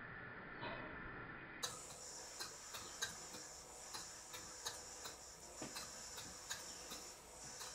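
Stuart Twin Victoria twin-cylinder model steam engine running slowly on compressed air: faint ticks from the engine, a little over one a second.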